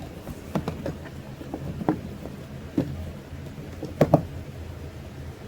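Hot Wheels RC toy car and its remote being handled: scattered light clicks and knocks over a low steady hum, with the loudest, a quick double knock, about four seconds in.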